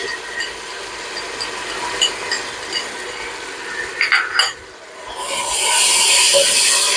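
Garlic-ginger paste sizzling in hot oil with fried onions in a stainless steel pot, with small crackles and a few sharp clicks about four seconds in. The sizzle grows louder from about five seconds as the paste is stirred in with a spatula.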